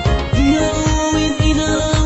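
Music: a pop song with a steady drum-and-bass beat, and a held melody note that comes in about half a second in.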